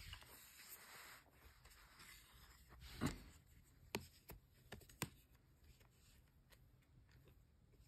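Faint handling noise from a plastic Blu-ray case, with a few short sharp clicks as a finger presses the disc's centre hub to free the disc, about three, four and five seconds in.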